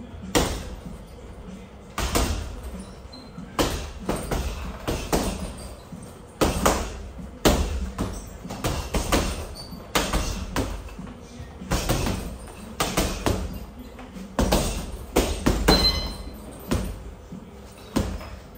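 Boxing gloves punching a hanging heavy bag: an uneven series of thuds, some single and some in quick combinations of two or three, with short pauses between.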